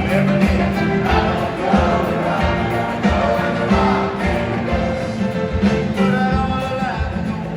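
Live band music with a steady beat and a group of voices singing.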